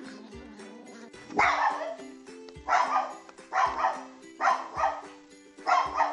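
A dog barking loudly, five barks about one a second starting about a second and a half in, over background music with a steady beat.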